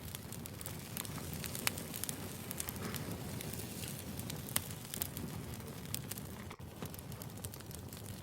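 Wood fire burning with a steady crackle and scattered sharp pops, two of them louder, about one and a half and four and a half seconds in.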